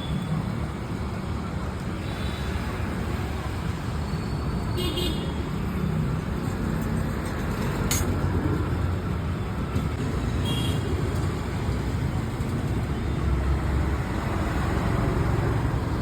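Road traffic running past, with short vehicle horn toots about five and ten seconds in and a sharp click in between.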